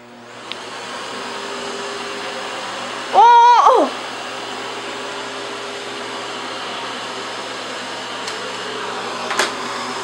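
LG canister vacuum cleaner switching on and spinning up over the first second, then running steadily as its wand is pushed across a wooden floor. About three seconds in, a loud high-pitched voice cries out for under a second over the motor.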